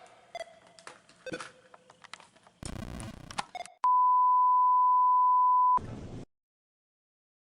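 Faint knocks and rustling, then a loud, steady electronic beep, one pure tone held for about two seconds that cuts off abruptly, followed by dead silence.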